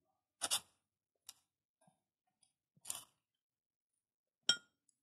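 Steel tire irons clinking against the wheel rim as they are set under the tire bead: a few short, separate clinks, the one near the end ringing briefly.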